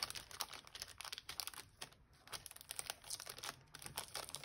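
Tissue paper faintly crinkling and tearing in many short, irregular crackles as the sticker seal on the wrapping is cut open.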